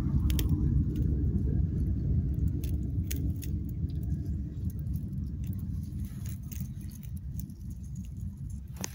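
A steady low rumble that slowly fades, with scattered small sharp clicks over it.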